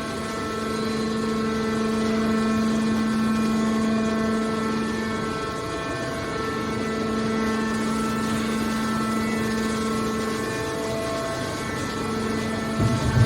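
Hydraulic scrap metal baler running: a steady mechanical drone with a humming whine, and a brief low knock near the end.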